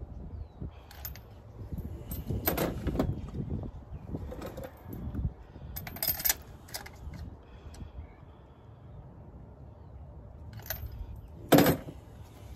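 Scattered metallic clinks and plastic clunks of hands and tools working on the spark plugs and ignition coils in a car's engine bay, the loudest knock coming near the end, over a steady low rumble.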